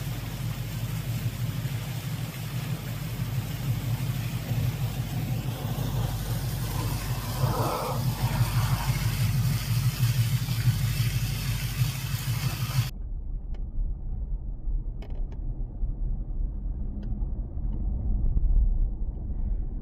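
Water of a small waterfall splashing down a rock face, a steady rushing hiss over a steady low hum. About two-thirds of the way through it cuts off abruptly to the low rumble of a car driving on a road, heard from inside the cabin.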